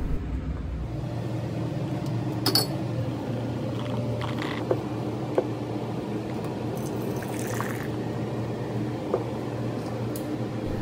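Coffee being poured into a cup, with a few light clinks of crockery, over a steady low hum.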